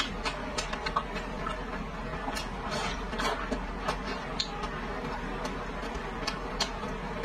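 Close-miked chewing of soft, fatty red-braised pork belly: wet mouth clicks and smacks at irregular intervals, over a steady low hum.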